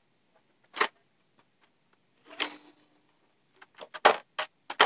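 Cardboard packaging and paper being handled: a few short separate rustles and knocks, then a quick run of clicks and rustles near the end.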